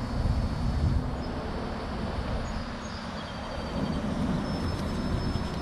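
Steady low outdoor rumble with a few faint high whistles and no clear single event.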